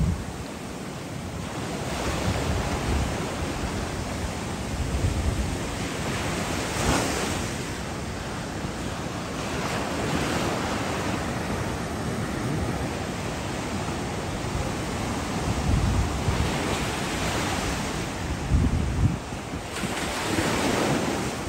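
Rough sea surf: waves breaking over rocks and washing up the shore in a continuous rushing wash, swelling louder as bigger waves break. The sea is running high and agitated at high tide.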